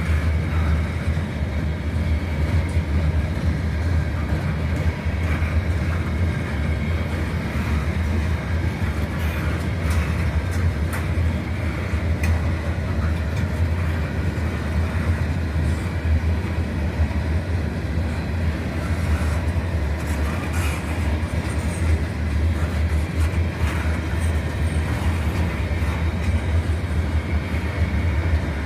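Freight train cars rolling past, a steady low rumble of steel wheels on rail with a few faint clicks.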